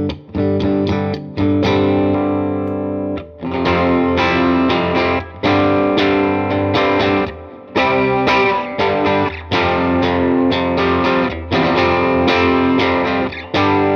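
Electric guitar, a Fender Jazzmaster, played through a Klon-style overdrive pedal into a Fender Deluxe Reverb amp, giving a light-to-medium overdriven tone. Chords are strummed and left to ring, with brief gaps about three and eight seconds in.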